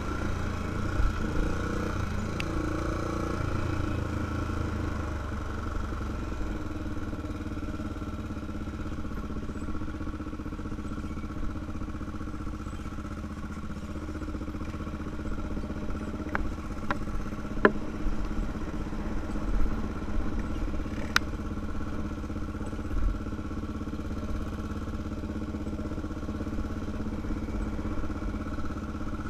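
Honda 400EX ATV's air-cooled single-cylinder four-stroke engine running at a steady, even pace while being ridden along a dirt trail. A few sharp clicks break in during the second half.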